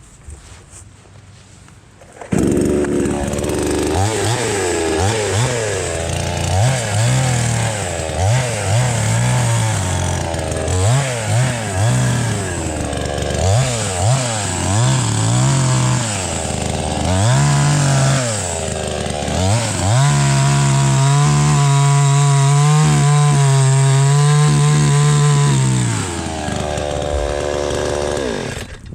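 Two-stroke gas chainsaw cutting through a half-rotted log. It starts abruptly about two seconds in and revs up and down repeatedly as it bites. Then it holds a steady high rev for several seconds before dropping off near the end.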